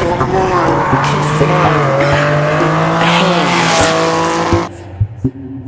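Air-cooled flat-six engine of a classic Porsche 911 race car running hard on the track, its note rising and falling as it drives through a corner and past. The sound cuts off abruptly about five seconds in.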